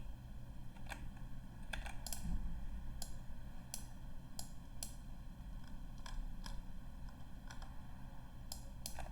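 Scattered, irregular clicks of a computer keyboard and mouse, about a dozen over several seconds, over a steady low hum.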